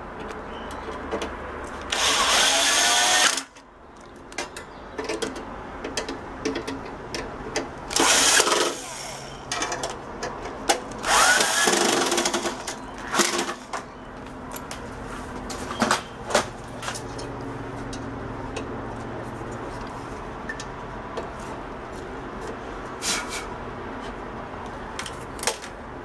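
Power drill with a screwdriver bit driving screws into a microwave oven's metal chassis, refastening the magnetron. It runs in three short bursts, the motor's pitch rising as it spins up, with clicks and knocks of handling in between.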